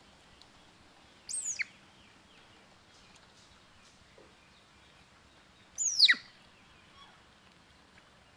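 Two short, high-pitched animal squeals, each falling steeply in pitch, about four and a half seconds apart, the second louder.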